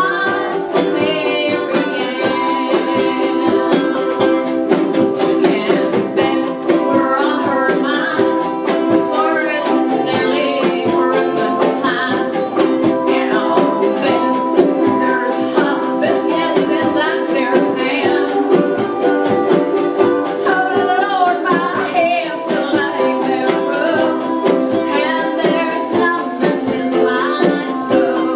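A group of strummed acoustic string instruments playing a song together, with singing voices over the strumming.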